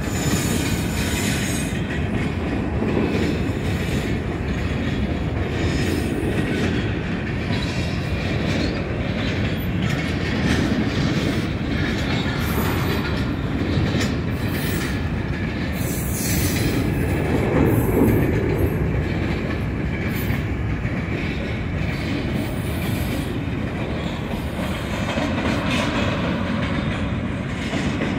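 Freight train cars rolling past: a steady rumble and clatter of steel wheels on the rails, with brief high-pitched wheel squeals now and then.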